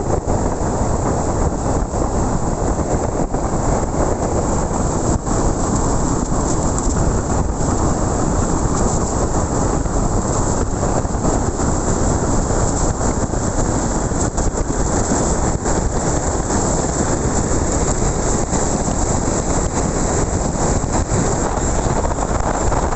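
Steady rushing wind and road noise from a motorcycle ride at speed, with no clear engine note standing out.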